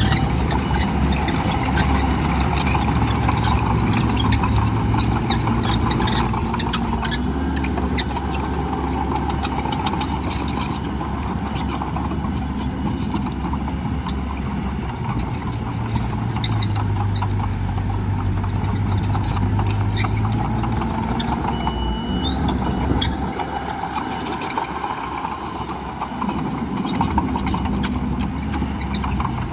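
Heavy diesel engines of earthmoving machinery running at a dirt fill, their pitch shifting up and down as the machines work, with scattered clanks.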